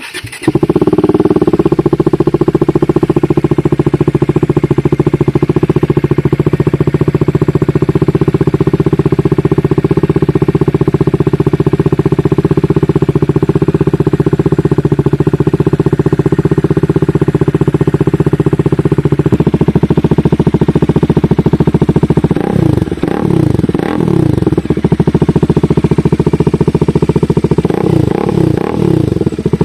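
Bajaj Dominar 400's single-cylinder engine, breathing through an SC Project slip-on exhaust, starting up and then idling steadily. From about two-thirds of the way in it is revved in a series of short blips, each rising and falling in pitch.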